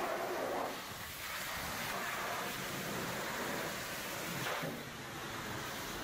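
High-pressure washer jet spraying water against the steel body, hopper and chute of a concrete mixer truck: a steady hiss of spray that dips briefly twice as the jet moves.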